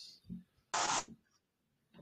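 Wooden chess pieces being set back up on a wooden board by hand: a soft knock of a piece put down, then a short scrape of a piece sliding across the board about a second in.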